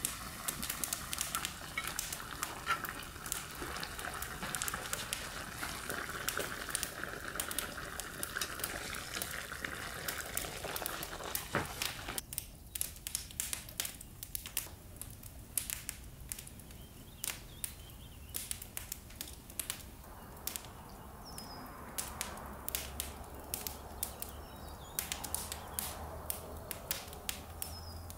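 Wood embers crackling with frequent sharp pops. For the first ten seconds or so a steady hiss of stew simmering in a cast-iron pot runs under the crackle, then drops away, leaving quieter crackling.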